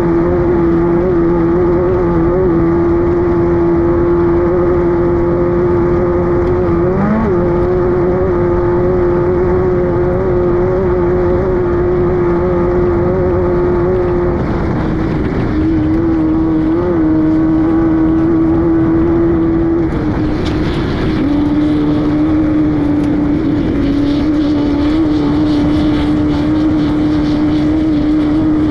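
Air-cooled VW 1600 engine of a Class 5-1600 off-road race car running hard at steady high revs. The pitch drops a step about halfway through and again about two-thirds of the way in.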